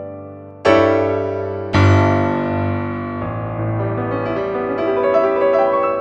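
Background music: a piano playing slow chords, two struck firmly about a second apart near the start, then quieter notes ringing out and fading.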